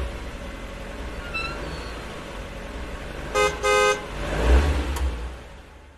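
A car horn beeping twice, short then longer, about three and a half seconds in, over the low rumble of a car engine that swells again after the beeps and then fades out.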